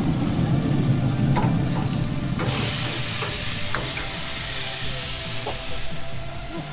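Food sizzling on a hot grill, with a low rumble for the first couple of seconds; then the sizzle grows into a bright, steady hiss with a few light clicks.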